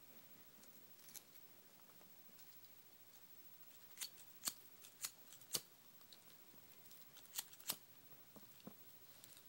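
Disposable lighter being struck: a series of sharp clicks, four about half a second apart, then two more close together a couple of seconds later, with a few fainter ticks near the end.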